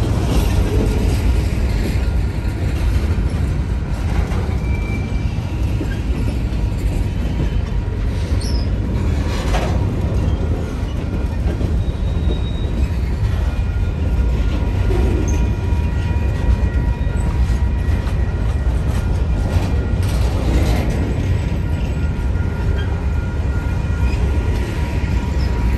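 Covered hopper cars of a Union Pacific manifest freight train rolling past close by: a steady rumble of steel wheels on the rails, with a couple of knocks and faint thin wheel squeals.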